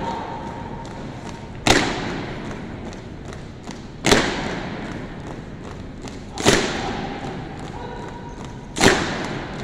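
A rifle drill team's loud unison impacts, four of them about every two and a half seconds, each echoing through a large hall, with lighter clicks and taps of steps and rifle handling in between.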